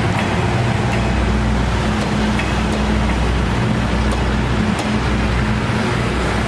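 DE10 diesel-hydraulic locomotive's engine running, a loud, steady low drone.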